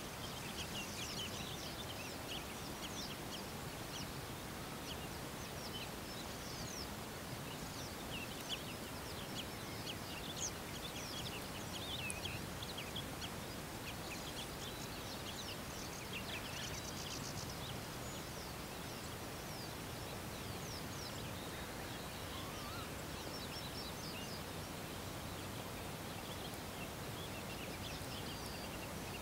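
Many birds chirping and calling, with short high calls coming thick and fast over a steady outdoor hiss. The calls thin out somewhat in the second half.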